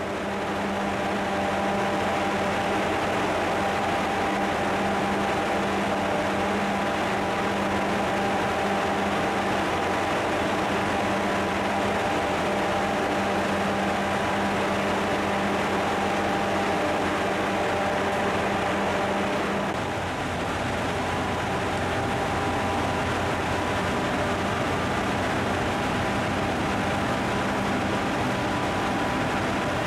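A ship's travelling gantry crane driven by electric motors through gearboxes and a rack, running as a steady mechanical hum with several whining tones over a noisy bed. The lowest hum drops out about two-thirds of the way through, while the rest keeps running.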